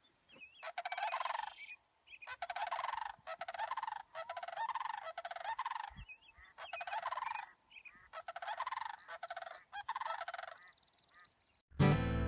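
A large bird's rattling, rolling calls, each about a second long, repeated roughly once a second with short gaps. Guitar music starts just before the end.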